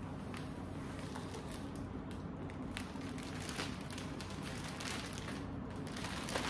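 Packaging crinkling and rustling in irregular small crackles as a courier mailer is opened and a shirt in a clear plastic bag is pulled out and handled.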